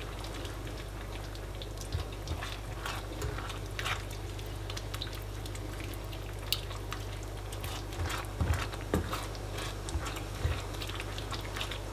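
A slotted spatula stirring wet bulgur with tomatoes and peppers in a pan, making scattered soft scrapes and taps against the pan over a steady low hum.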